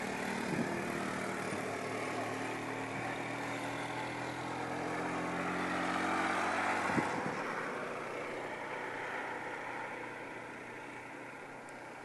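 A motor vehicle's engine running steadily, its pitch sinking slightly, then stopping with a click about seven seconds in, leaving an even hiss.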